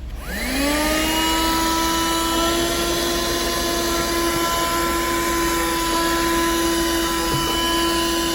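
A 12-volt handheld car vacuum cleaner switched on: its motor spins up with a whine that rises in pitch for about half a second, then runs steadily.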